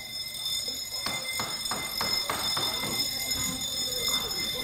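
Factory-hall background: a steady high whine, with a run of quick knocks about three a second starting about a second in.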